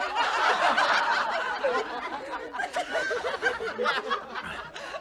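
Sitcom studio audience laughing, breaking out all at once and loudest in the first second, then thinning to scattered laughs.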